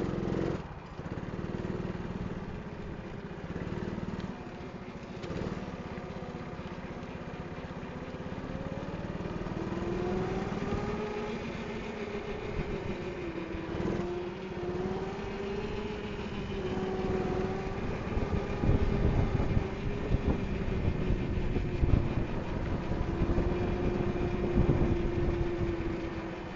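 Rental go-kart engine heard from the kart itself, its note rising and falling with the throttle through the corners. The pitch climbs about ten seconds in, and the sound grows rougher and louder in the second half.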